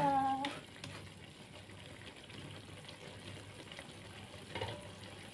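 Water spinach stir-fry in oyster sauce sizzling and bubbling steadily in the pan.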